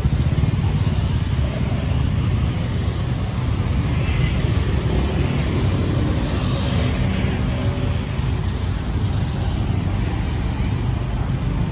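Steady street traffic noise: a continuous low rumble of vehicles with no separate events standing out.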